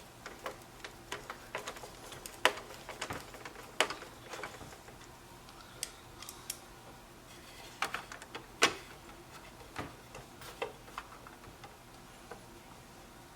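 Irregular small clicks and taps as the Ford overhead display console's parts are worked and pressed back together, the sharpest click a little past halfway.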